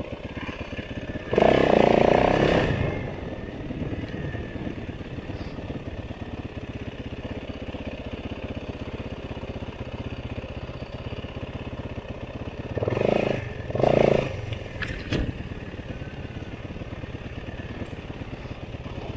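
Off-road motorcycle engine running steadily, with two loud surges of throttle, one about a second and a half in and a double one around thirteen seconds in. A short sharp knock follows about fifteen seconds in.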